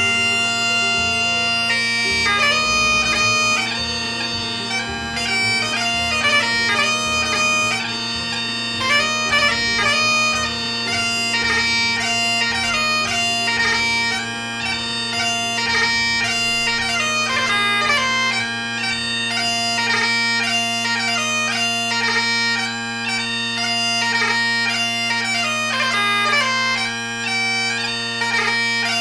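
Bagpipe music: steady drones held under a quick-moving chanter melody.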